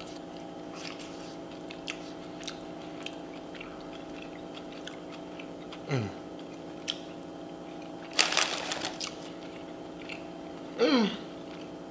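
Close-miked chewing of a Chipotle bowl with faint wet mouth clicks, over a steady hum. About eight seconds in comes a brief crinkly rustle of the Doritos bag as a chip is taken, and the eater gives two short falling hums of the voice, once midway and once near the end.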